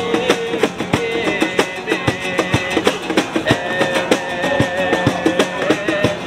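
Guitar music with a steady beat and long held melody notes over it.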